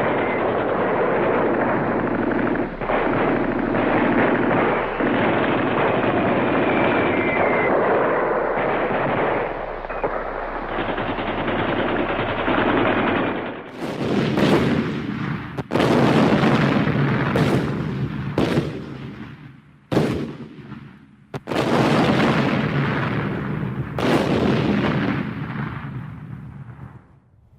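Battlefield gunfire. First comes a dense, unbroken stretch of rapid firing. About halfway through it changes to a series of separate loud bangs, each trailing off in a long echo, and the sound fades out near the end.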